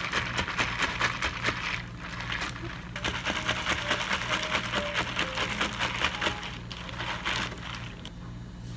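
Ice cubes rattling and clinking in a clear plastic cup as an iced green tea latte is stirred with a long plastic stirrer. There are two bouts of quick clattering, a pause of about a second between them, and a stop near the end.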